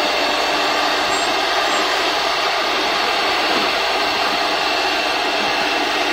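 Three-head CNC wood router running steadily, its spindles whining as the bits cut and engrave a round wooden board.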